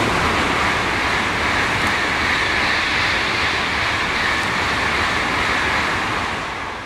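An N700-series Tokaido Shinkansen train passing through the station at speed without stopping: a loud rush of air and wheel noise that cuts in suddenly as the nose arrives, holds steady, and starts to fade near the end.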